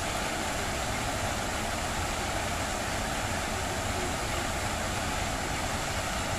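Many water jets of a large fountain spraying and splashing down into its basin: a steady, even hiss of falling water.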